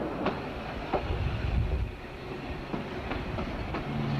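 Dudley, Stourbridge & District single-deck electric tram No. 5 running along its track with a low rumble, its wheels clicking several times at irregular intervals over the rail joints.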